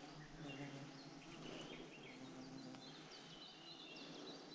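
Faint outdoor ambience: small birds chirping and twittering in short high calls over a low, even background hiss.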